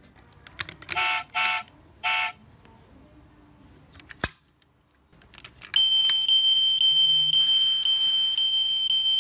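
Electronic sound effect from a die-cast toy Hummer's built-in sound chip, set off by pressing the car down: a click about four seconds in, then from about six seconds a steady high electronic tone with an even pulse, about three a second. Near the start there are three short electronic beeps.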